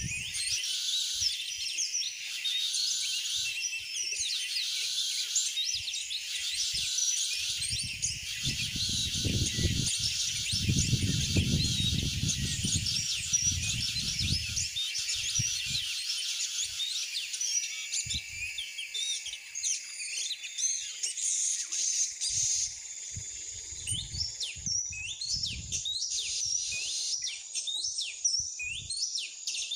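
Songbirds singing and chirping in a dense run of quick high calls and trills. A low rumble joins in from about 8 to 15 seconds.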